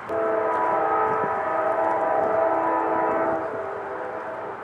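Norfolk Southern locomotive's multi-chime air horn blowing one long blast, several notes sounding together as a chord for about three seconds before it trails off.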